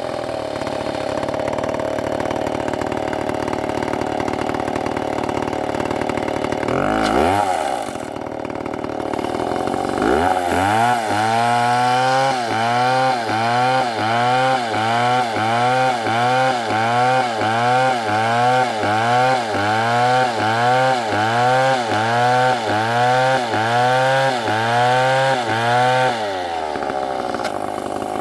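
STIHL chainsaw running and cutting wood: steady for several seconds, a brief rise and drop in pitch around seven seconds in, then for about fifteen seconds the engine pitch rises and falls in an even pulse about once a second before settling back to a steady run near the end.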